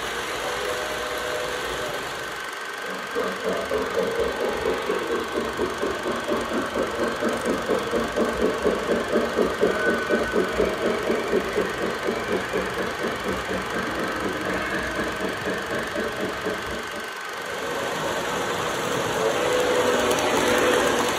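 O gauge Lionel model steam locomotive's sound system chuffing in an even rhythm, about three chuffs a second, over the rumble of cars on three-rail track. After a short break near the end it gives way to a steadier engine sound from a Lionel Fairbanks-Morse C-Liner diesel passing.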